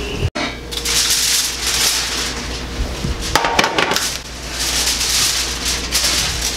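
Aluminium foil crinkling and crackling as it is handled, in several bursts.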